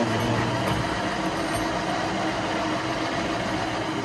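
Workshop machinery running with a steady mechanical drone and a few faint constant tones.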